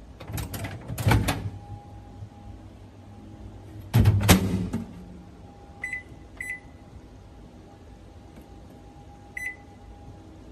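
Panasonic NN-GT35NB microwave oven being handled: a few clattering knocks at first, then a loud clunk about four seconds in. Three short, high keypad beeps follow, two close together and one a few seconds later, over a steady low hum.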